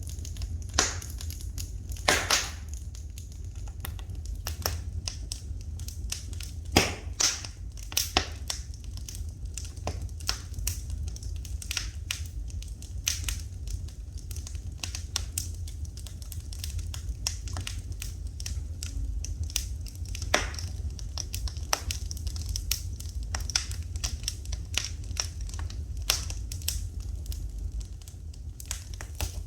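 Wood fire crackling in a fireplace: irregular sharp pops and snaps over a steady low rumble, with the loudest pops about two and seven seconds in.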